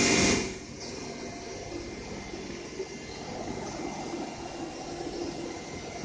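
Steady rushing hiss and rumble of compressed-air spray-painting equipment in a paint booth, with a brief louder burst of hiss at the very start.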